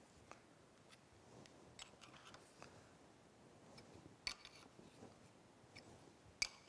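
Quiet, scattered metal clicks of a small wrench on steel gib adjusting screws and jam nuts, with two sharper clicks about four seconds in and near the end.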